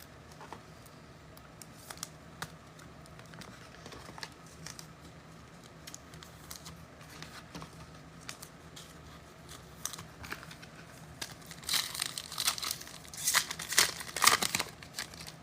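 Foil trading-card pack wrappers being torn open and crinkled by hand. The crackles are faint and scattered at first, then come thicker and louder for the last few seconds.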